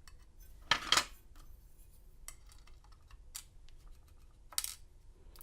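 Small metallic clicks and ticks from a padlock's pin-tumbler pins and tools being handled: a few sharp clicks, two close together about a second in and another near the end, with faint ticking between.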